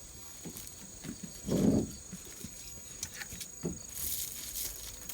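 Crickets chirping steadily. Over them, dried luffa gourds are being handled: a brief low thud about a second and a half in, a few light taps, and papery rustling and crackling of the dry fibre and seeds from near the end.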